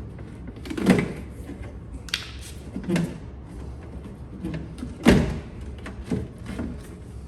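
A series of sharp knocks and clunks, about six, the loudest about five seconds in, from a piece of a Hyundai Genesis Coupe's door handle assembly being worked loose inside the stripped door.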